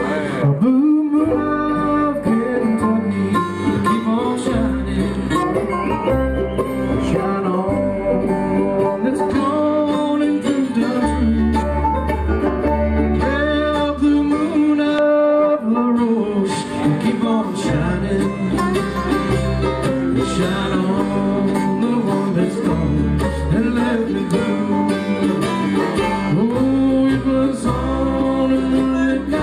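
Live acoustic bluegrass band playing: banjo, mandolin, acoustic guitar and upright bass, with the bass pulsing underneath and singing over the top.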